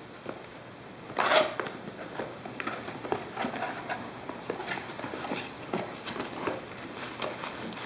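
Cardboard box being opened by hand: a louder scrape as a flap is pulled free about a second in, then irregular rustling and crinkling of cardboard and packaging as the contents are handled.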